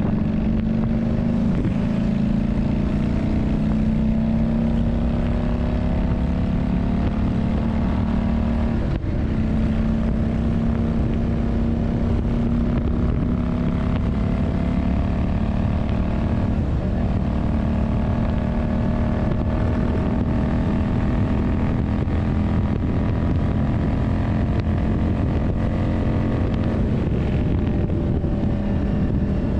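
Yamaha Drag Star 400's air-cooled V-twin engine running at a fairly steady speed, its note drifting slightly, with brief dips about 9 and 17 seconds in, over a dense low rumble.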